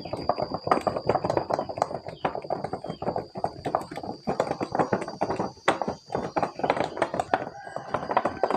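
Action-figure toy packaging being handled: rapid, irregular clicking and rustling of plastic and cardboard, with a faint steady high-pitched whine underneath.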